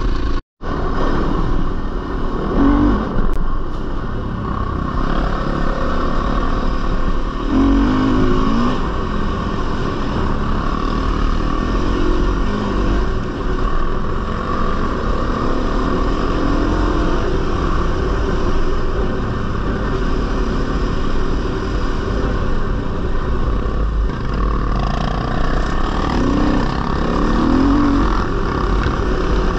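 Four-stroke single-cylinder dirt bike engine running along a trail, its pitch rising and falling several times as the throttle opens and closes.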